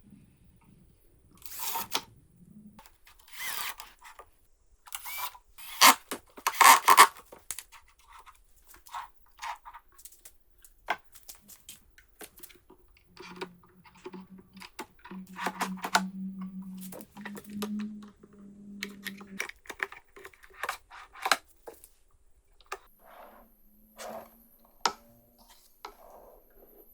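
Wooden drawers being slid and handled: rough sliding scrapes and sharp knocks and clicks of wood on wood, loudest about six to seven seconds in. A low steady hum runs for several seconds near the middle.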